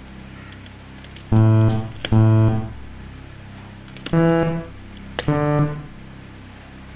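Game-show note buttons pressed one at a time, each press giving a click and a buzzy electronic note about half a second long. Four notes come at uneven gaps, the last two higher than the first two, as the players repeat a note sequence from memory.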